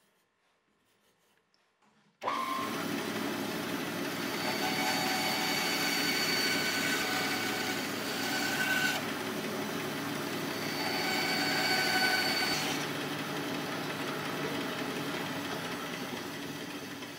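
Band saw running and cutting slots into a plywood board. The noise starts suddenly about two seconds in, and a higher whine comes in twice, around the middle, as the blade cuts.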